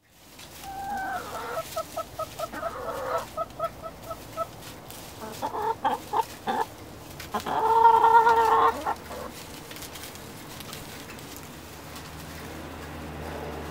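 Backyard hens clucking: a quick run of short, evenly spaced clucks, a few louder calls, then one long drawn-out call about eight seconds in, the loudest sound.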